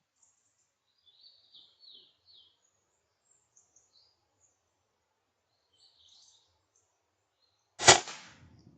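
Faint bird chirps, then near the end a single sharp air rifle shot, by far the loudest sound, with a short tail.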